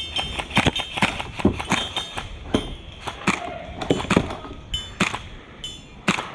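Airsoft guns firing irregular single shots: sharp pops and clacks at about two a second.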